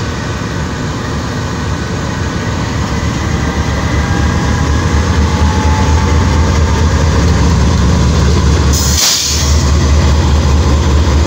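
Pakistan Railways GEU-20 (GE U20C) diesel-electric locomotive pulling out under power past the microphone, its engine a deep steady drone that grows louder. A short burst of hiss comes about nine seconds in.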